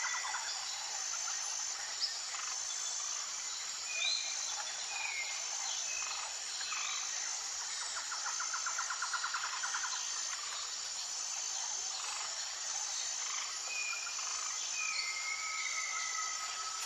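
Jungle ambience: a steady high insect chorus with a regular pulsing note, scattered bird calls with short falling whistles, and a rapid trill lasting a couple of seconds near the middle. There is one sharp click about two seconds in.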